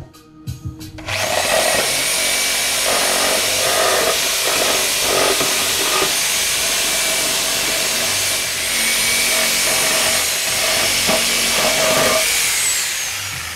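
A few wooden knocks, then a handheld electric power sander starts up and runs steadily against pallet-wood slats, with a faint high motor whine. It dies away near the end.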